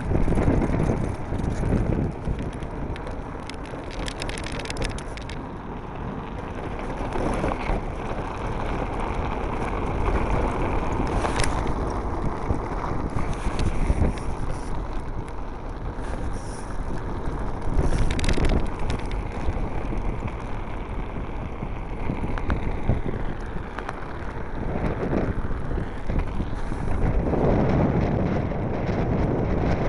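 Blokart land yacht sailing fast across a cracked dry lakebed: strong wind buffeting the microphone over the rumble of its wheels rolling on the hard playa, with a few short, sharper rushes along the way.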